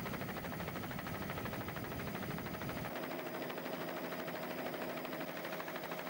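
Steady helicopter engine and rotor noise with a fast flutter. The low rumble drops away about three seconds in.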